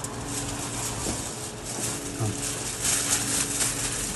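Aluminium foil crinkling and rustling as hands press and fold it around a piece of meat, with louder crackles near the end.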